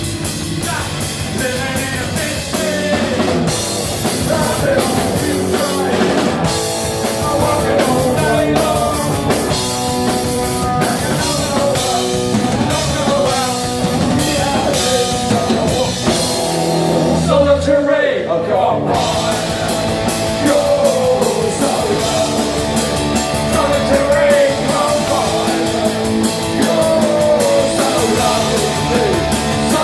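Punk rock band playing live: electric guitars, bass and drum kit, with singing. Near the middle the drums and cymbals stop for about two seconds, then the full band comes back in.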